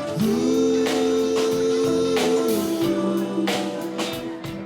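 Live band playing an instrumental passage between songs: a steady drum beat under a long held note that slides up at the start and bends down about halfway through.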